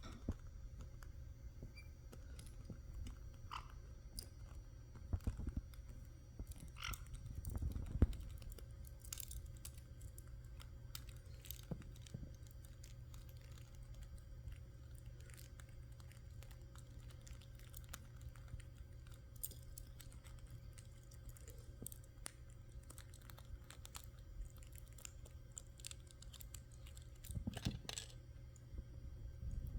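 Caique parrots chewing and tearing at something with their beaks: faint scattered crunches, clicks and small rips, with a louder cluster about eight seconds in and another near the end.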